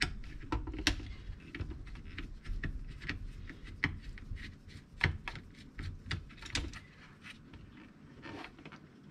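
Screwdriver backing out the screws that hold down a Bissell SpotClean's pump, with many irregular small clicks and scrapes of metal on plastic, the loudest about five seconds in. The clicking thins out near the end as the loosened pump is handled.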